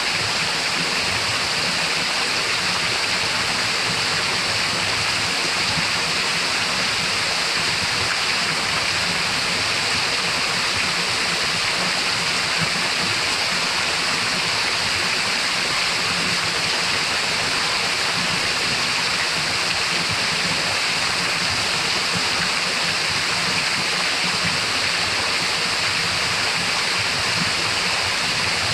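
Waterfall pouring steadily into a pool, an even, unbroken rush of falling water.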